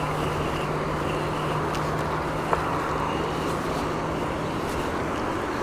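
Steady rush of water flowing through a spillway channel, with a low steady hum underneath that stops near the end.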